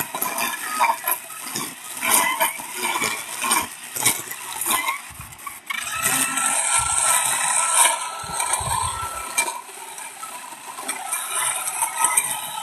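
Grass being cut in a field: irregular crackling, rustling strokes, then a steadier, denser spell of noise with a faint steady tone in the middle.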